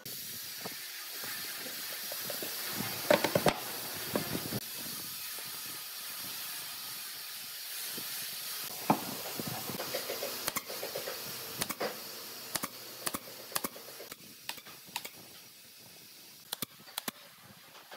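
A steady hiss with scattered wooden knocks as pine boards are handled. Near the end come sharp single clicks: a pneumatic brad nailer firing brads into the box's pine panels.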